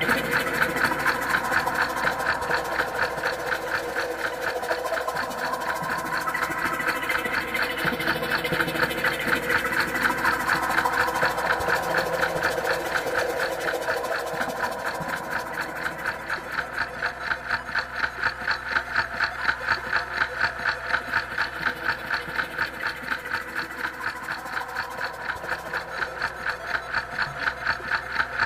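A rapid, evenly pulsing mechanical drone, engine-like, beating several times a second.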